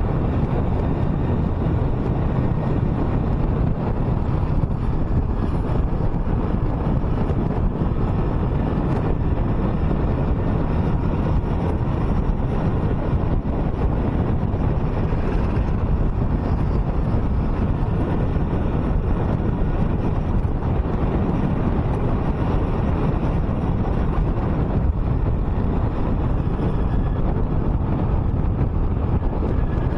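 A car driving along a highway: steady low tyre and engine rumble with wind noise on the microphone, unchanging throughout.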